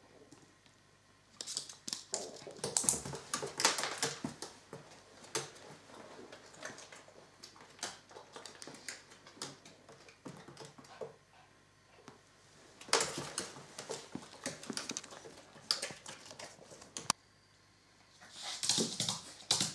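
A small puppy moving about on a wooden floor and around a plastic dog crate: claws clicking and scrabbling in bursts a few seconds long, with quieter gaps between them.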